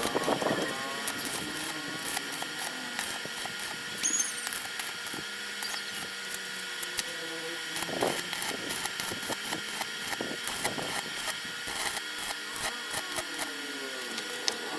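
Homemade coconut grater driven by a washing machine motor, running with a steady whine and rapid, irregular scratchy clicks.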